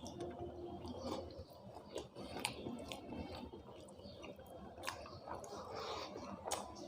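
A person chewing a mouthful of chicken curry and khichuri close to the microphone, wet squishy mouth sounds with many short sharp clicks and smacks scattered through.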